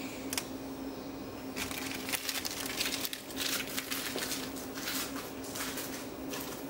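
Irregular crackling and rustling handling noise, thickest in the middle, over a steady low hum.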